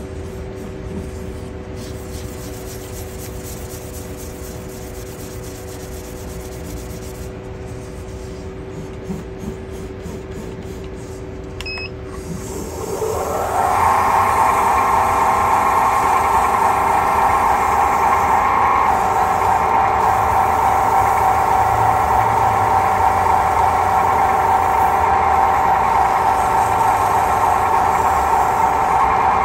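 Wood lathe motor running steadily with a low hum while the purpleheart handle spins and is polished with sanding paste on a cloth. About halfway through the lathe is sped up: its whine rises in pitch, gets much louder, then holds steady at the higher speed.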